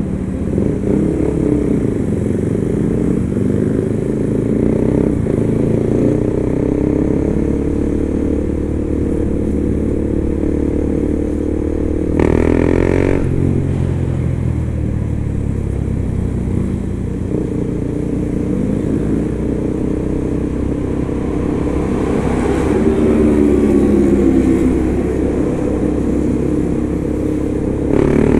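KTM 390's single-cylinder engine riding along, its pitch rising and falling with the revs. There is a short, sharp burst of revs about twelve seconds in and a longer, louder climb near the end.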